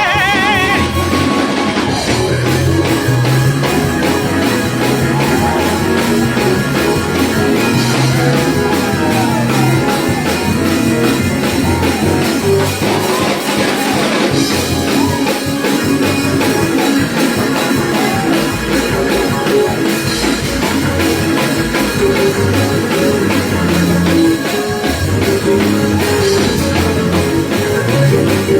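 Loud, steady praise music with drums, guitar and bass playing a regular beat, with some singing mixed in.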